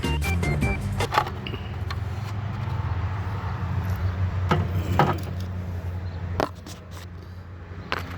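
A steady low engine drone under a few separate clanks and scrapes of tools on metal, as the tractor's engine is checked for a knock.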